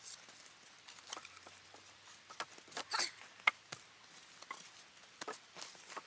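Wooden poles knocking and clattering as they are laid side by side across a frame, with irregular light knocks and scrapes and a few louder knocks about three seconds in.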